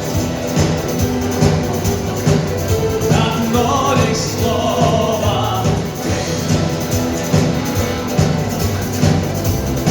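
Live rock band playing a song, with guitars, bass and a steady drum beat.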